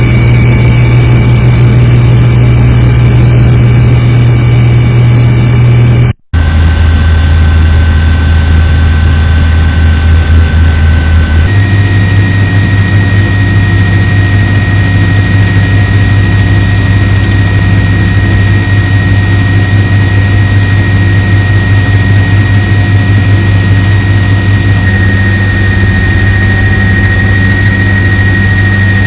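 Helicopter turbine and rotor noise, a loud steady drone with a high whine over it. About six seconds in the sound cuts out for an instant, and it shifts slightly in pitch at about eleven seconds, where the footage is edited.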